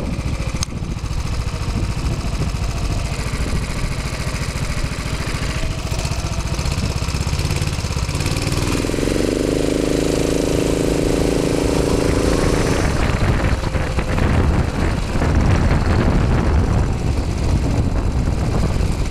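Rental go-kart's small engine running close by, heard from the driver's seat. About eight seconds in its note climbs and holds for several seconds as the kart speeds up, then the sound turns rougher.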